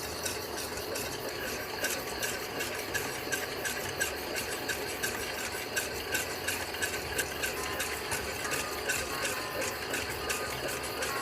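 A utensil stirring and scraping around a pot in a steady rhythm, about two strokes a second.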